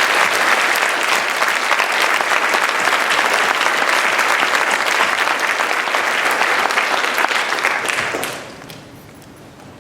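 An audience in a hall clapping, a dense steady applause that fades out about eight seconds in.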